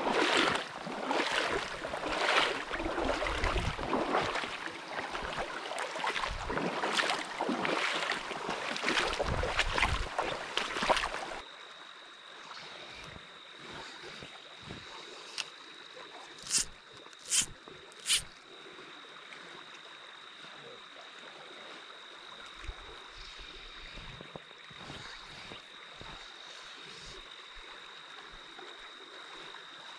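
Water sloshing and splashing, with irregular louder splashes, as someone wades through a shallow stream. About eleven seconds in it cuts to the quieter steady flow of the stream with a faint high whine, broken by three short sharp sounds a little under a second apart.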